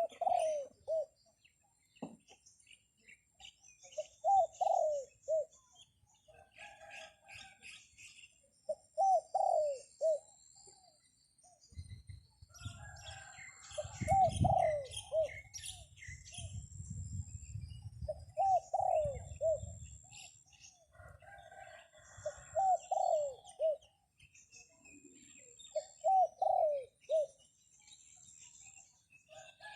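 A dove cooing, a short phrase of curving notes repeated every four to five seconds, with small birds chirping. Wind rumbles over the microphone for several seconds in the middle.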